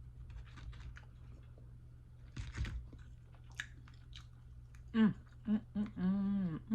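Close-up chewing and mouth sounds of someone eating, with soft smacks and crunches. Near the end come a few short hums and a longer pleased "mmm".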